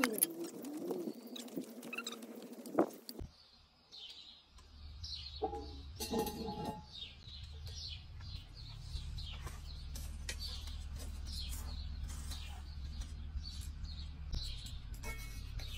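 Heavy cast-iron lid of a Petromax Dutch oven being set on the pot, with metallic clanks and brief ringing in the first few seconds. Then small birds chirp repeatedly over a low steady hum.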